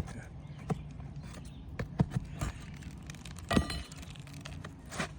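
Scattered metal clicks and taps of a hand tool working roofing nails out from under asphalt shingles, about six in all, one about three and a half seconds in ringing briefly like struck metal.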